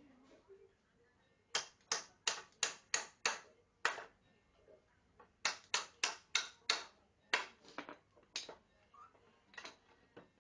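A series of sharp knocks, about three a second, in two runs of about six, followed by a few scattered single knocks.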